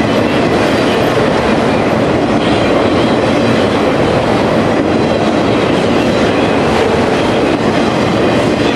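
Autorack freight cars rolling past close by: a loud, steady noise of steel wheels running on the rails.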